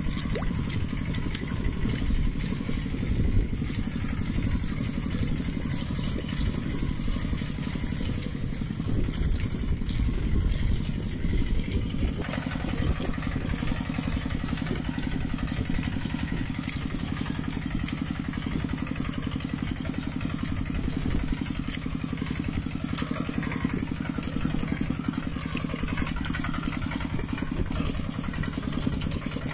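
Mini tractor engine running steadily with a rapid chugging beat. About twelve seconds in, a rougher, noisier layer joins it.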